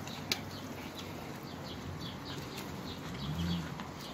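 Birds chirping: short high chirps, several a second, with one sharp click about a third of a second in.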